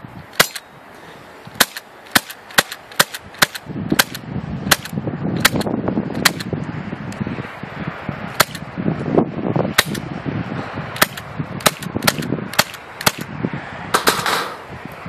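Airsoft rifle firing a rapid, irregular series of sharp shots, some twenty cracks.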